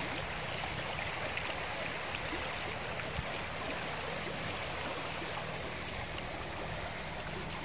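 Shallow mountain river running steadily over rocks and gravel, a constant rushing of water.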